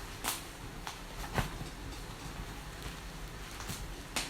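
Packaging being handled: a few short, sharp crinkles and knocks from tape and bubble wrap being pulled off a cardboard box, the loudest about a second and a half in.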